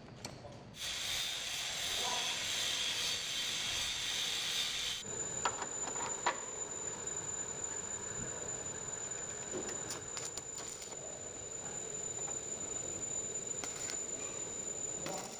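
Arc welding on a steering tie rod end: a steady hiss for the first few seconds, then irregular crackling and sputtering with a steady high whine from about five seconds in.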